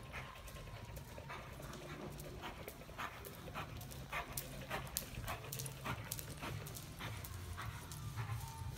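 Horse loping on soft arena dirt: hoofbeats in a steady, regular rhythm, about three a second.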